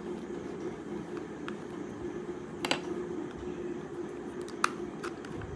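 A few sharp plastic clicks as a TV remote control's snap-fit case is pried open, the loudest about halfway through and again near the end, over a steady hum.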